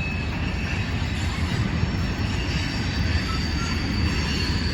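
Loaded CSX coal train rolling steadily past, its cars rumbling, with thin high squealing tones from the wheels on the rails.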